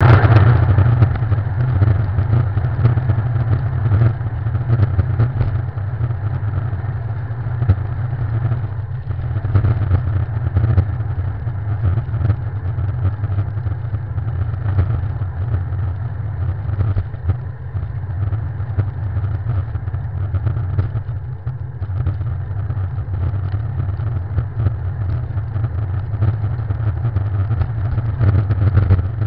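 Steady low rumble of riding a bicycle, from wind and road vibration on a handlebar-mounted camera, with a fainter hiss above it and no clear changes.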